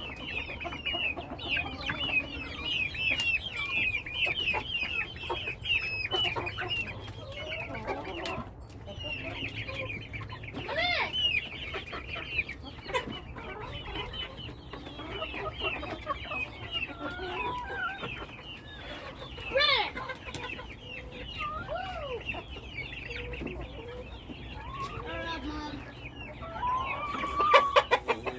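A flock of chickens clucking and calling over one another, with many short, high-pitched chirping calls and lower clucks, and a louder call near the end.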